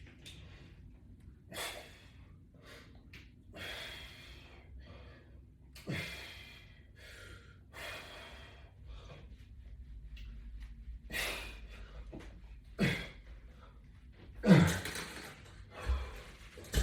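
A man breathing hard during a resistance-band workout: short, forceful breaths every couple of seconds, a few of them with a low grunt of voice.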